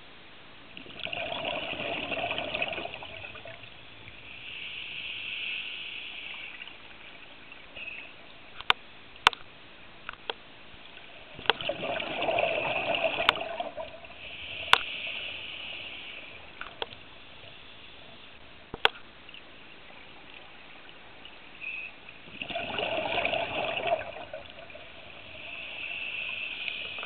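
A scuba diver breathing through a regulator: three breaths about ten seconds apart, each a rush of bubbles followed by a hiss. A few sharp clicks fall between the breaths.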